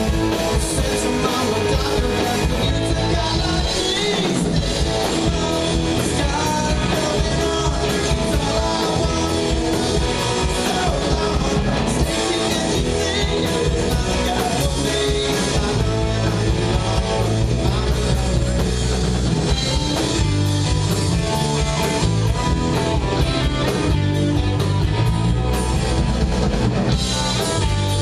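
Live rock band playing a song: electric guitar and drum kit, with singing.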